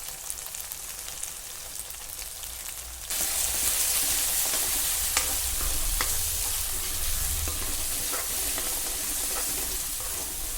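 Spiced masala paste frying in hot oil in a pan, sizzling steadily while a spatula scrapes and taps against the pan as it is stirred. The sizzle jumps louder about three seconds in.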